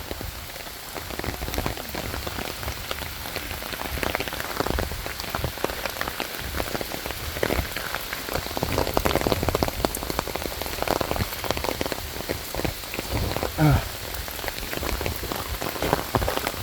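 Rain falling, a dense, irregular patter of drops that runs steadily, with a brief vocal sound from the hiker near the end.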